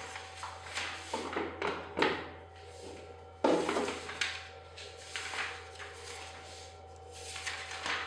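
Short, irregular scrapes and rustles of something being handled, about a dozen over several seconds, over a steady low hum.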